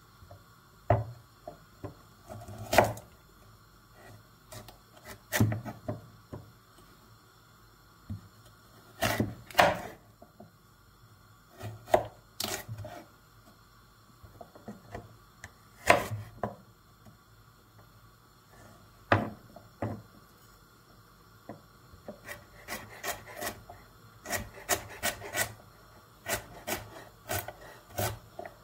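Chef's knife cutting a peeled carrot on a wooden cutting board. The blade knocks through the carrot onto the board in separate strokes a few seconds apart, then from about two-thirds of the way in comes a quick run of chops as the carrot is diced.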